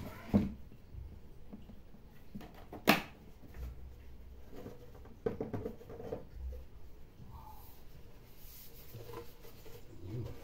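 Packaging being handled as a boxed portable turntable is unpacked: light knocks and rustling of cardboard, foam and tissue paper, with one sharp click about three seconds in as the loudest sound.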